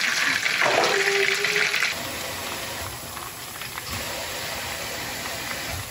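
Panko-breaded fish frying in a pan of hot oil, a steady sizzle that drops to a fainter hiss about two seconds in.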